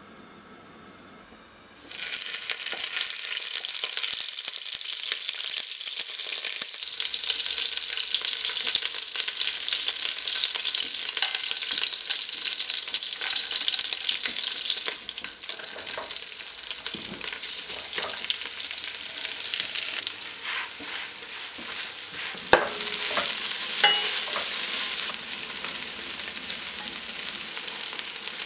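Whole spices (lemongrass, star anise, cardamom and cloves) sizzling in hot ghee in a pan, starting abruptly about two seconds in. Later, sliced onions, curry leaves and garlic join the frying, with a few sharp knocks a little past twenty seconds.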